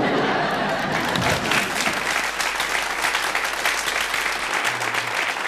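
Studio audience applauding, starting abruptly and holding steady.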